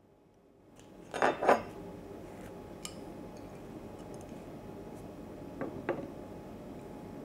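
Kitchenware being handled: two sharp clattering knocks about a second in, then two softer knocks later, over a steady background hiss that comes up just before the first knock.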